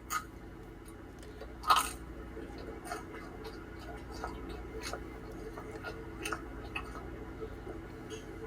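Close-miked chewing of pizza: soft wet mouth clicks and smacks, with one louder smack a little under two seconds in, over a low steady hum.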